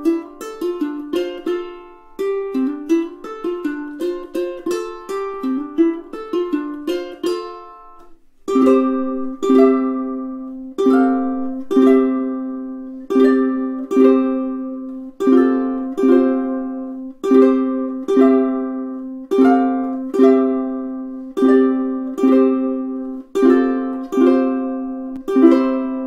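Snail UKT-518E tenor ukulele played solo: quick fingerpicked notes for about the first eight seconds, then chords strummed about once a second, each left to ring.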